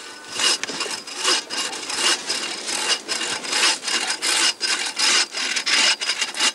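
Bow saw cutting through a tree branch in quick, even back-and-forth rasping strokes, a little over two a second.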